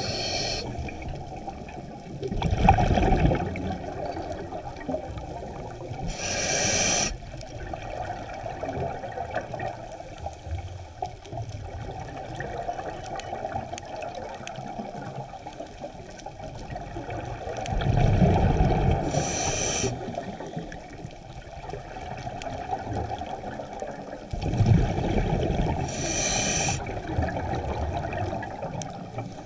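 Scuba regulator breathing underwater: three short hissing inhalations through the demand valve, and between them louder low rushes of exhaled bubbles, over a steady low underwater rumble.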